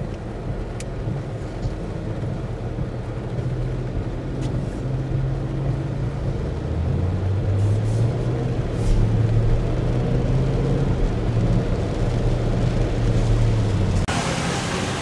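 Road traffic on a rain-wet street: vehicle engines running, with a deep engine drone growing stronger through the middle. Near the end, a loud hiss of tyres on wet pavement comes in suddenly.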